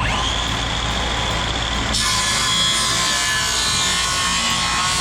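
Circular saw set to a 45-degree bevel, spinning up to a steady whine and then, about two seconds in, cutting through the wood.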